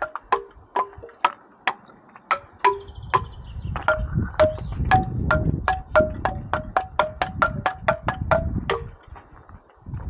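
Outro music: a melody of short, sharply struck notes that die away quickly, about three to four a second, with a low rumble underneath from about four to nine seconds in.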